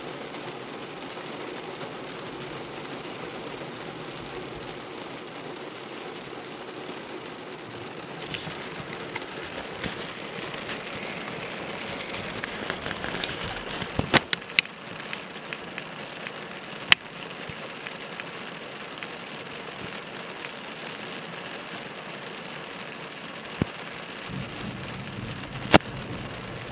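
Heavy rain drumming steadily on a car's windshield and roof, heard from inside the car. A few sharp taps stand out, several of them about halfway through and two more near the end.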